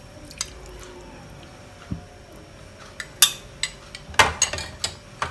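A metal spoon clinking against a small glass and a ceramic plate as tamarind water is spooned over fish. There are a few light clicks at first, then a run of louder knocks and clinks in the second half as the spoon and dishes are handled.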